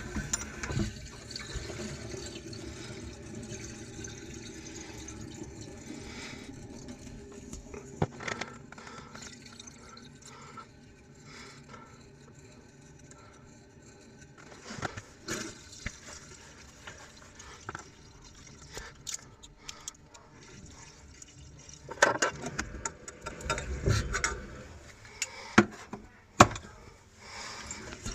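Water hissing through a boiler filling loop as a sealed central heating system is repressurised, steady for about the first half and then dying away. Several sharp knocks and clicks near the end.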